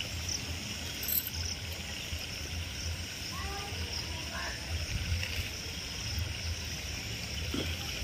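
Steady chorus of frogs and insects calling around wet paddy fields after rain, with a few short separate calls about halfway through and a low rumble underneath.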